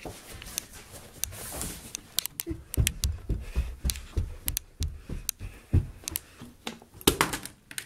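Handling noise and footsteps from a camera carried by hand: a run of uneven light clicks and soft thumps.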